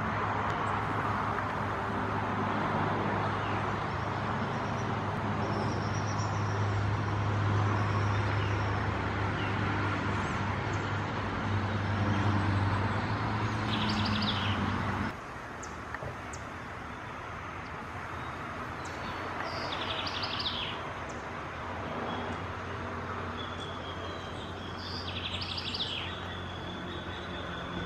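Outdoor background with a steady low hum, vehicle-like, that cuts off abruptly about halfway. Then a quieter background with short high chirps of small birds several times, and a thin steady high whistle near the end.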